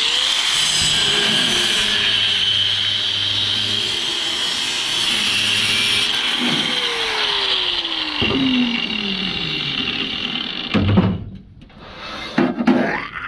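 Power tool cutting through a metal scrap pipe, a steady high-pitched cutting noise that stops about eleven seconds in. A few knocks follow near the end.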